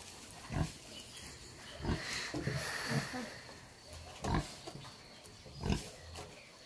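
Pig grunting, repeated short grunts about every second or so.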